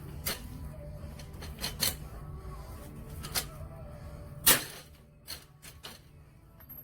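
A series of irregular sharp clicks and knocks, the loudest about four and a half seconds in, over a low steady hum.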